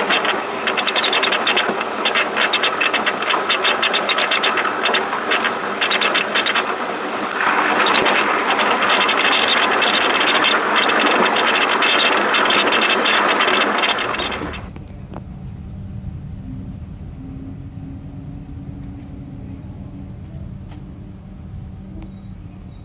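Loud rattling rush of a train in motion, full of rapid clicks and clatter, which cuts off suddenly about two-thirds of the way through to a quieter, steady low rumble.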